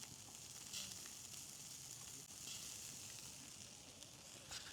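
Faint sizzling of food frying.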